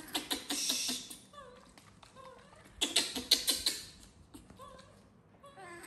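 Baby macaque giving a few short, soft whimpering squeaks, between bursts of quick clicking and tapping in the first second and again about three seconds in.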